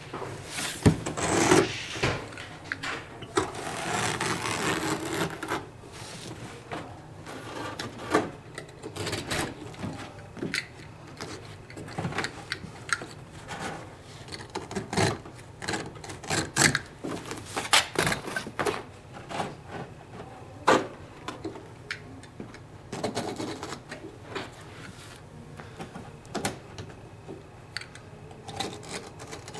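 Carpet knife cutting and scraping through stair carpet along the wall edge, in scratchy strokes with many small clicks and knocks as the carpet is trimmed and pressed in by hand. The longest scraping strokes come in the first few seconds.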